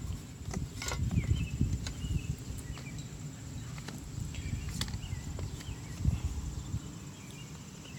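A few sharp clicks and knocks from the plastic bird feeder being closed, over a low rumbling noise, with a few faint short chirps.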